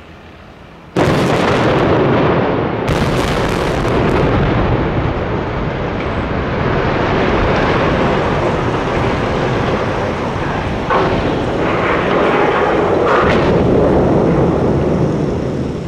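Explosive charges detonating to fell a power plant's steel-framed boiler house. A sudden blast comes about a second in and a second sharp blast about two seconds later, then a long rumble of the structure collapsing, with a few more cracks late on before it fades.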